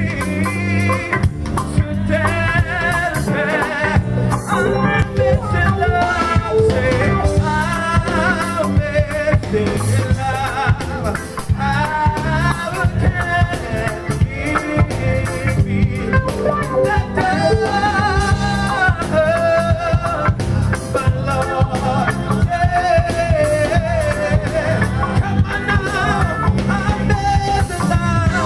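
Live church band playing an upbeat praise song, with drums, bass guitar, lead guitar and keyboard, and voices singing over it.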